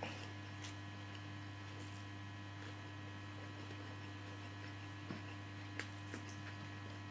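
Faint eating sounds: fingers gathering rice on a plate and food being taken into the mouth and chewed, heard as a few small clicks and smacks, the sharpest a little over five seconds in, over a steady low electrical hum.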